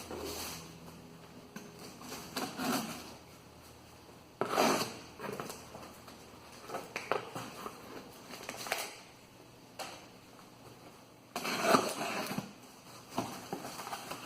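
A cardboard box being opened and rummaged through, packing peanuts pulled out: irregular rustling and crunching, with two louder bursts, one about four seconds in and one near the end.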